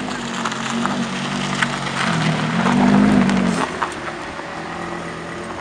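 Lamborghini Gallardo Superleggera's V10 engine running at low revs as the car pulls away slowly. The revs rise and fall twice, the second rise longer and loudest about three seconds in.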